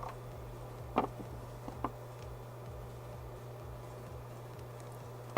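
A few short light clicks and taps, about a second apart, from small tools and wires being handled during wire splicing, over a steady low electrical hum.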